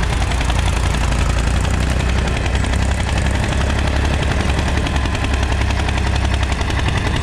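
Mahindra tractor's diesel engine running steadily under load as it pulls a nine-tine cultivator through the soil, its exhaust giving a rapid, even beat.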